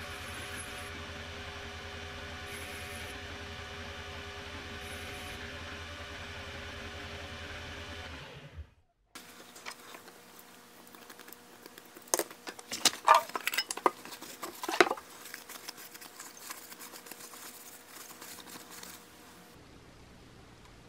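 A belt grinder running steadily with its belt spinning and nothing being ground, a machine hum with fixed tones, which cuts off abruptly about eight and a half seconds in. Then quieter handling sounds: rustling and a cluster of sharp clicks and clacks a few seconds later.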